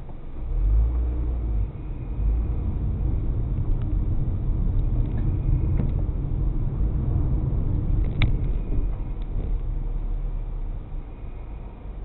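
A car's engine and road rumble heard from inside the cabin as it pulls away from a stop and drives on, swelling about half a second in and easing off near the end as it slows. A single sharp click sounds about eight seconds in.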